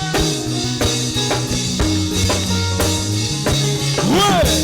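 Upbeat gospel praise music with no singing: drum kit keeping a steady beat under bass and sustained keyboard chords. A short sliding rise and fall in pitch comes near the end.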